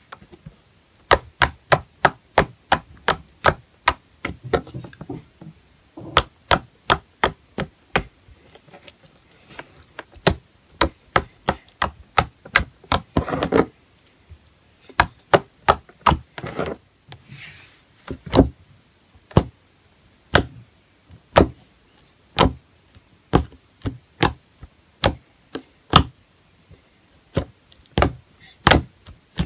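Slime being poked and pressed with fingertips, giving sharp wet clicks and pops. They come sometimes in quick runs of three or four a second, and later as single louder pops about a second apart, with a couple of longer squelches where the slime is squeezed and stretched.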